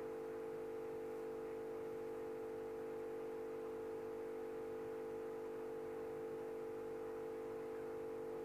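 A steady, even hum of several held tones, strongest in the middle pitches, with no other sound standing out.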